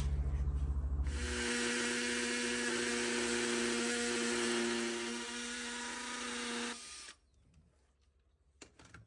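A power drill runs steadily for about six seconds, boring holes into a rough rendered wall, then stops abruptly. A low hum comes before it, and there is a single click near the end.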